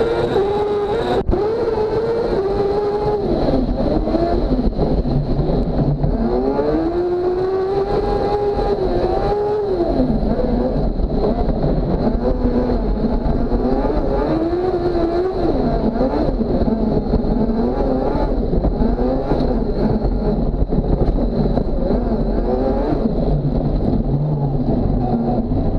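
Speedcar Xtrem racing buggy's engine, heard from on board while racing on dirt, its revs rising and falling again and again through the corners over a steady rumble. A single sharp click about a second in.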